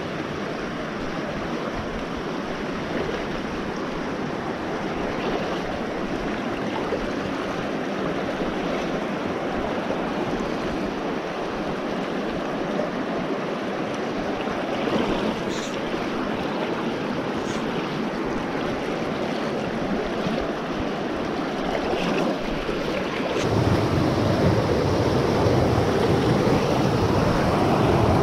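Shallow stream running over stones and gravel, a steady rushing of water. About three-quarters of the way through it switches to a louder, fuller rush of a small cascade tumbling over rocks.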